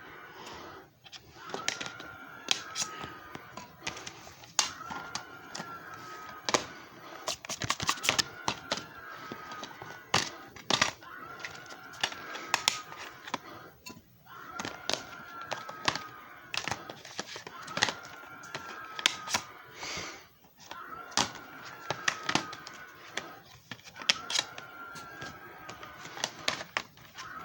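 JFJ Easy Pro disc repair machine running, a whirring tone that dips and recovers in a cycle about every two seconds, with irregular clicks and rattles throughout.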